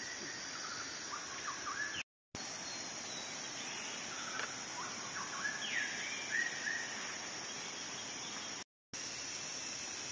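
Tropical forest ambience: a steady high-pitched insect drone with short whistled bird chirps, a few about a second in and more from about four to seven seconds in. The sound drops out completely twice for a moment.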